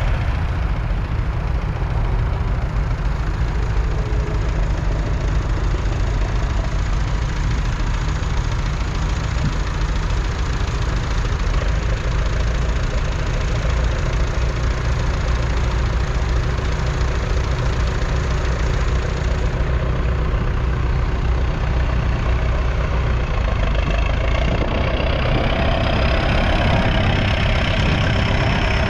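1981 Leyland 802's 3.8-litre four-cylinder diesel engine running steadily. Its note rises and falls in the last few seconds.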